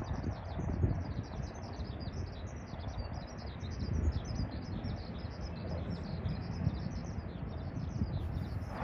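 Small birds chirping in a rapid, continuous stream of short high notes over a low, uneven rumble.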